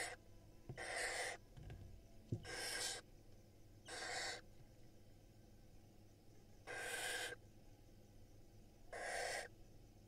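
Barn owl nestlings' begging calls: a series of about six harsh, hissing rasps, each about half a second long, coming every one to two seconds.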